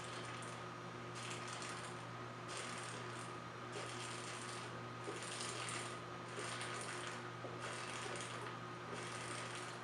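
A bottle of beer being chugged: a steady run of faint gulps, roughly one a second, over a low steady hum.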